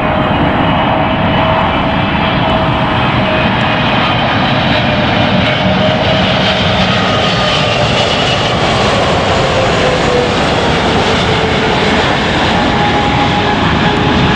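Twin turbofans of a Boeing 777 freighter on final approach with its gear down, passing low and close: a loud, steady jet roar with whining tones that slowly fall in pitch as it goes by.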